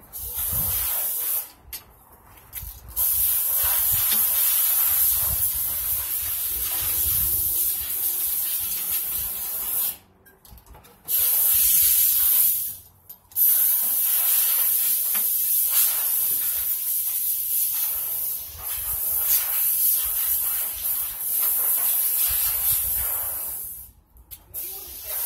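Aerosol spray-paint can hissing as paint is sprayed on, in long bursts broken by a few short pauses.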